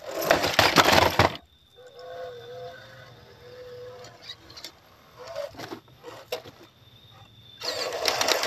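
Electric RC crawler truck scrambling over rock and dry leaf litter: a loud burst of scraping and rustling at the start and another near the end. In between come a faint wavering motor whine and a few light knocks.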